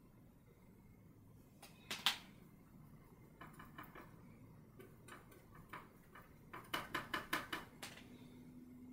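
Quiet taps and scrapes of a bristle paintbrush working oil paint, a sharp one about two seconds in and a quick run of about five short strokes near the end, over a low room hum.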